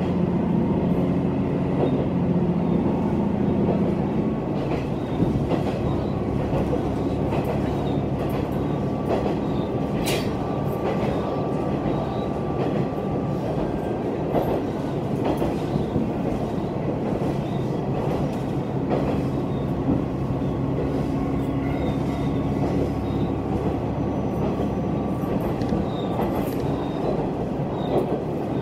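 Heisei Chikuho Railway diesel railcar running at speed, heard from inside the car: a steady engine drone and wheel-on-rail rumble, with a few sharp clicks from the rail joints.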